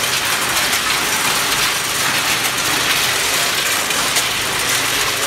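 Frozen granular beans pouring and rattling over the stainless steel feeders, buckets and chutes of a Yamato 14-head weigher: a steady patter of many small hard pellets striking metal, like rain on a metal surface.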